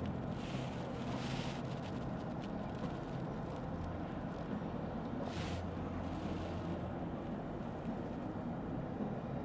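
Cabin noise of a Lexus ES 350 F Sport driving on rain-wet roads: a steady low hum of engine and tyres, with brief swells of hiss near the start and about five and a half seconds in.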